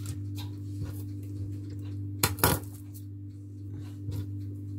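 Two sharp clicks about two seconds in, a fraction of a second apart, typical of a knife knocking against a marble countertop. A steady low electrical hum runs underneath.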